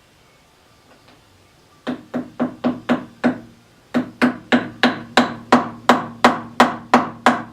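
Hammer tapping a tool into the head of a paint-caked bolt to seat it and break the paint: light metallic taps about three a second with a short ring after each, a run of about six, a brief pause, then a longer steady run.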